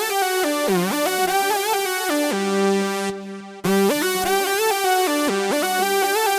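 Roland Fantom synthesizer playing a quick, stepping melodic pattern. About halfway through, a low note is held, the sound cuts out for half a second, and the pattern starts again.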